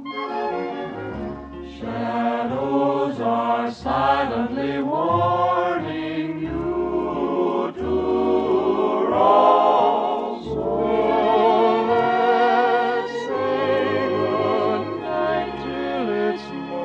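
Choir singing with orchestral accompaniment, the voices held in long notes with a wide vibrato. It is a 1950 radio broadcast recording with a dull top end.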